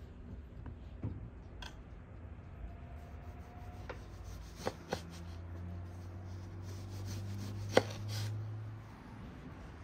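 Food preparation: a few scattered knocks and clicks of kitchen utensils on a cutting board, the sharpest a little before eight seconds, over a low steady hum.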